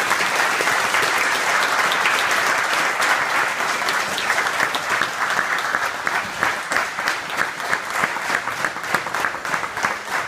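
Audience applauding, steady and dense at first, then thinning into more separate claps toward the end.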